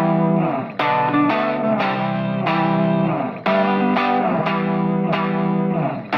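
Background music: guitar chords strummed or plucked in a steady rhythm, with effects on the guitar.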